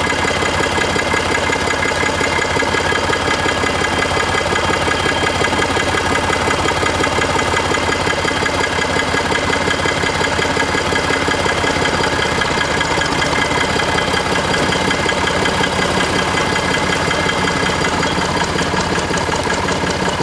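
Old Massey Ferguson farm tractor engine idling steadily, a loud, noisy rapid chugging.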